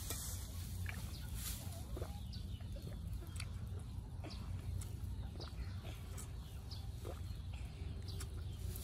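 Chickens clucking, short scattered calls over a steady low rumble.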